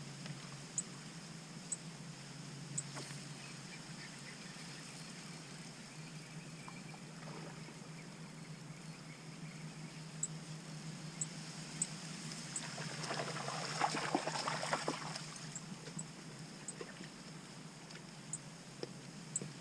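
Quiet shoreline ambience: a steady low hum with faint high ticks about once a second, and a short burst of dense crackling or splashing about thirteen seconds in.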